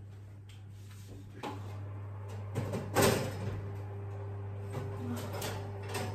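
Oven door pulled open with a clunk about three seconds in, followed by a steady hum and a few light knocks.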